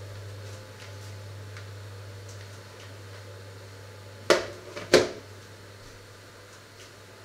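Two sharp knocks about half a second apart, a little past halfway, over a steady low hum.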